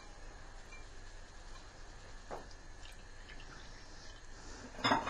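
Sumac water dripping faintly through a sieve into a bowl as it is strained, with a small click about halfway and a short, louder knock near the end.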